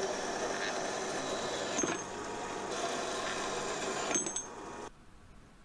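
Horizontal metal-cutting bandsaw running steadily as it cuts through aluminium bar stock, then cutting off abruptly near the end.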